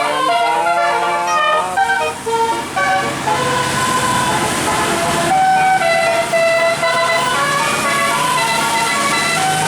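Indonesian bus 'telolet basuri' musical horn playing a tune of quick stepped notes.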